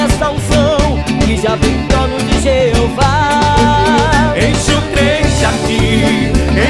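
Upbeat Brazilian gospel band music in an instrumental stretch between sung lines: a wavering lead melody, with one note held about halfway through, over steady bass and drums.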